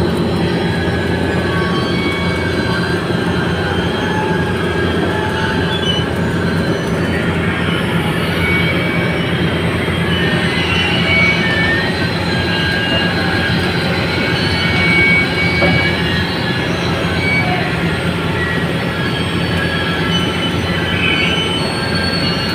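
Loud, steady din of heavy steelworks machinery: a continuous low hum under dense noise, with many brief high-pitched metallic squeals and screeches scattered throughout.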